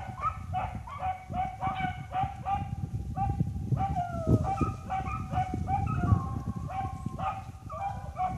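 A pack of rabbit-hunting dogs baying, a steady string of short yelping calls a few a second with several voices overlapping: the hounds are running a cottontail on its scent trail. A low rumble runs underneath.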